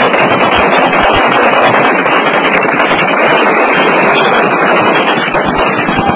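Dense celebratory gunfire from many guns fired into the air at once, the shots overlapping into a continuous crackle without a break.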